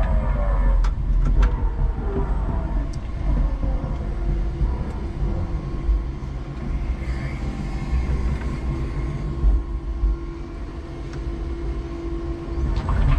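5-ton electric forklift truck driving, heard from inside its cab: a continuous low rumble of the drive and wheels, with scattered clicks and rattles. A steady hum joins about four seconds in.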